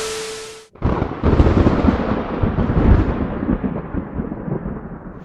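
A short hiss with a steady tone, then, about a second in, a sudden loud rumbling boom that slowly dies away over about four seconds.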